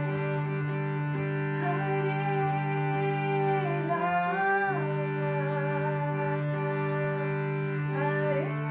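A woman sings a devotional kirtan melody over the held chords of an Indian hand-pumped harmonium. The harmonium's chord changes about four seconds in and again near the end, while the voice glides between held notes.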